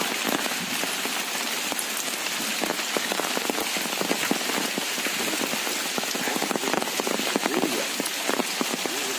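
Heavy rain falling steadily, thick with the close patter of individual drops.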